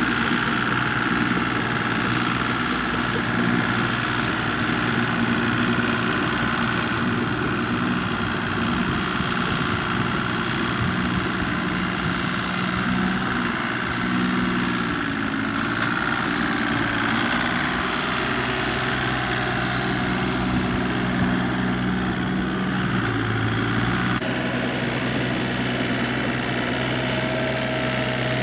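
Small Kubota tractor's diesel engine running steadily while it pulls a harrow through a rice paddy, its note drifting slightly in pitch. About 24 seconds in, the engine sound changes abruptly to a slightly different steady note.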